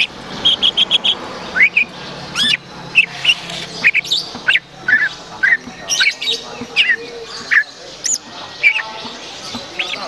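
Leafbird (cucak ijo) singing: a lively, varied run of short sharp chirps and upswept whistles, with a quick burst of four rapid notes about half a second in and more quick trills throughout.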